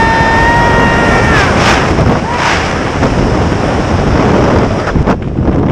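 Strong wind rushing over the microphone of a hand-held camera during a tandem parachute descent. In the first second and a half someone lets out one long, high, held yell.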